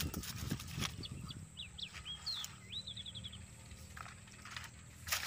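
Dry leaves and twigs rustling and crackling as a caught grey francolin is handled on the ground. About two seconds in, a thin high bird call sounds: a few short chirps, then a quick trill.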